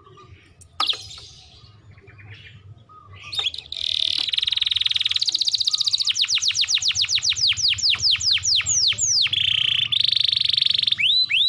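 Domestic canary singing. One short chirp about a second in, then from about four seconds a loud run of fast trills: rapid repeated notes, then a string of falling whistles that slows toward the end, then a buzzing trill.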